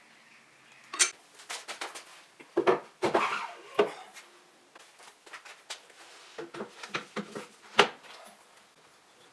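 Metal parts of a bench drill clinking and knocking as they are handled, an irregular run of sharp taps and clanks, loudest about a second in and again near eight seconds.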